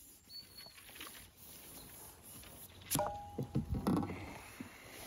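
A sharp knock and a brief clatter of knocks about three seconds in, from a fishing pole being handled while a hooked fish is played on it.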